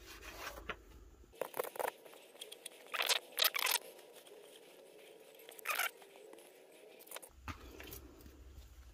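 Paper towel rubbing and crinkling against a wet, vinyl-wrapped stainless steel tumbler as it is wiped, in a few short scratchy rustles.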